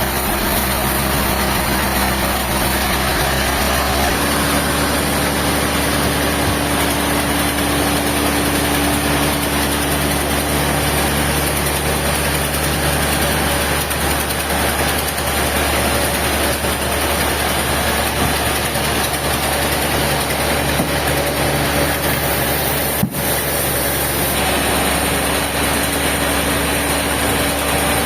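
Engine of heavy machinery running steadily, with a short break in the sound near the end.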